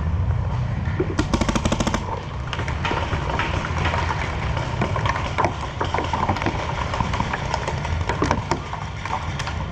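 Paintball markers firing around the field: many scattered shots, with one fast, evenly spaced string of shots about a second in, over a steady low rumble.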